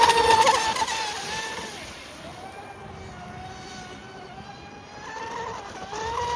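Cozy RC M700 electric RC race boat running on a 4S battery: a steady high-pitched motor whine, loudest at the start as it passes close, fading for a few seconds, then rising again near the end as it comes back.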